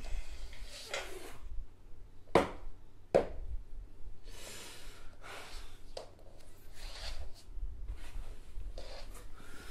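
A man breathing hard in ragged gasps, one every second or so. Two sharp thumps about two and a half and three seconds in are the loudest sounds.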